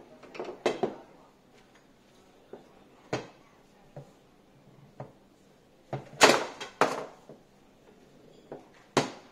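Foosball being played on a JX 125 table: sharp, irregular knocks as the ball is struck by the men and hits the table, with the loudest pair a little past the middle and another near the end.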